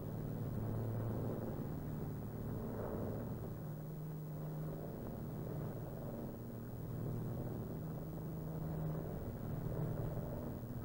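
Steady low drone of a Douglas Dakota's twin radial engines heard from inside the cabin in flight.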